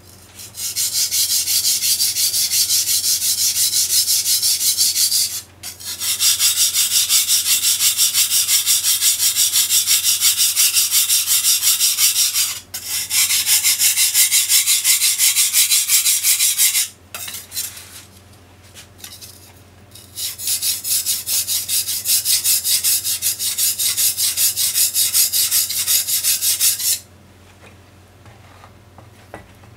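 Steel blade of a large kitchen knife pushed back and forth on a whetstone: a gritty, high-pitched scraping at about three strokes a second, in several runs with short pauses, stopping near the end.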